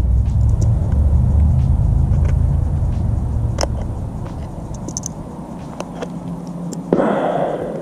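Aluminium foil crinkling and tearing with scattered small crackles as hands pull open a foil-wrapped leech trap, with a louder rustle near the end. Underneath is a low rumble that fades over the first few seconds.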